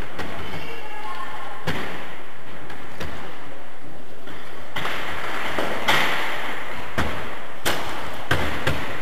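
Cycle-ball (Radball) play in a gym hall: the ball is struck by the players' bicycle wheels and knocks against the boards. It makes about seven sharp thumps and knocks, spaced irregularly and coming more often in the second half, echoing in the hall.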